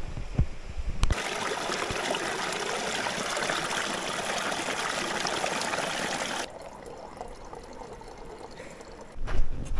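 Water running steadily as a supply of drinking water is drawn into a container, cutting off abruptly about six and a half seconds in.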